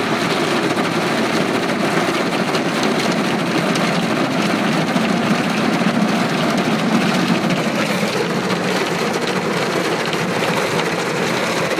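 Automatic car wash at work: water spray and brushes washing over the car body, heard from inside the cabin as a loud, steady noise.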